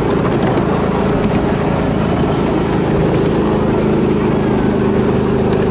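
Miniature ride-on train's engine running steadily as the train travels, a constant hum over a fast low pulse.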